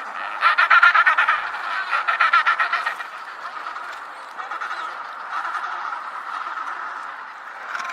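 Penguins calling: two loud, harsh calls made of rapid pulses in the first three seconds, then softer, continuing calls.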